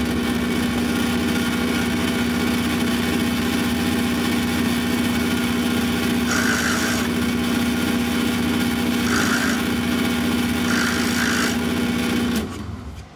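Benchtop drill press motor running with a steady hum while its bit drills into a walnut table-saw insert blank, the cutting heard three times in short spells in the second half. The motor is switched off near the end and winds down.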